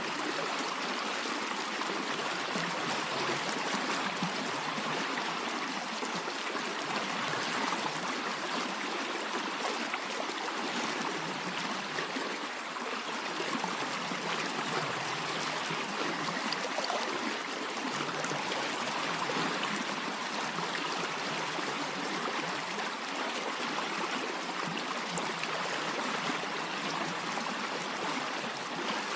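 A stream of water flowing steadily and evenly.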